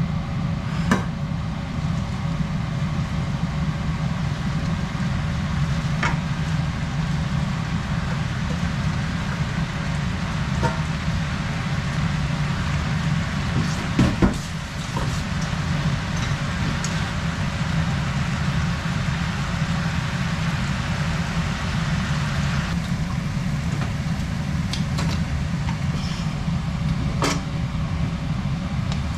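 Napa cabbage cooking in a frying pan on a gas stove over a steady low hum and a hiss. Scattered clicks and knocks of utensils on the pan, with a louder knock about halfway through.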